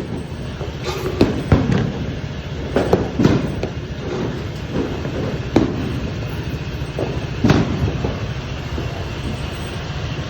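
Train rolling on rails: a steady low rumble with irregular clanks and knocks.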